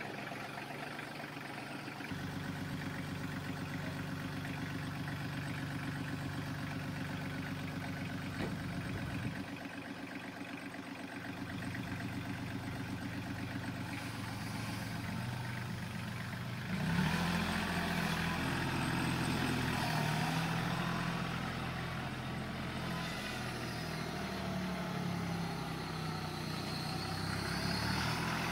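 Kioti CK4010 HST compact tractor's diesel engine running steadily at idle. About 17 seconds in it gets louder and busier as the engine is revved and the tractor pulls away.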